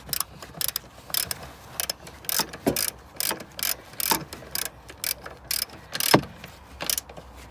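Ratchet wrench with a 12 mm socket clicking in short irregular runs as the bolts holding a hybrid battery pack to the chassis are tightened, with one louder click about six seconds in.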